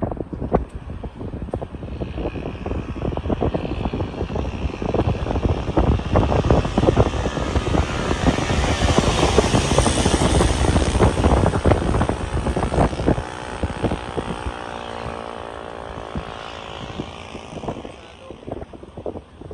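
Wind buffeting the microphone of a phone held out of a moving car's window, over road and engine noise; the rush is loudest midway, then eases, and a steady engine drone comes through in the second half.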